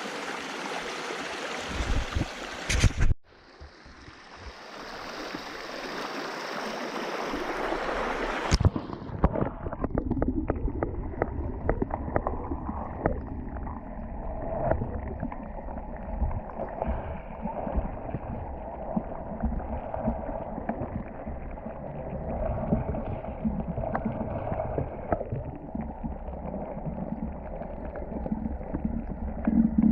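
A clear mountain river rushing over stones for the first three seconds. After two abrupt cuts, a muffled low rumbling dotted with many small knocks takes over for the rest.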